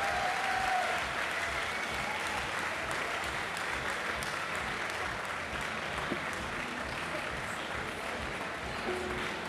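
Audience applauding steadily at the end of a song, with a brief shout from the crowd in the first second.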